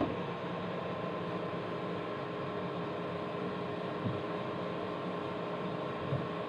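Steady mechanical hum with a faint held tone, like a fan or appliance running, and two soft knocks about four and six seconds in.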